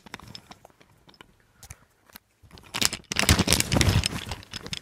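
Handling noise: a few light clicks of wooden toy trains being set down, then from about halfway through a loud, rough rustling and scraping as the recording phone is moved close over fabric.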